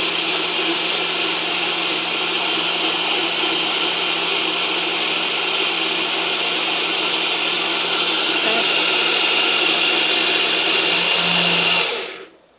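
NutriBullet blender motor running at full speed with the extractor blade puréeing a green smoothie of spinach, banana and fruit with water, a steady high whirr over a low hum, the contents already ground smooth. The motor cuts off and spins down quickly near the end.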